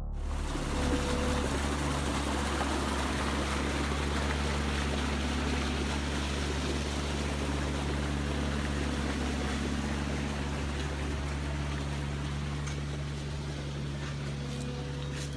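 Steady rush of flowing water over a constant low machine hum.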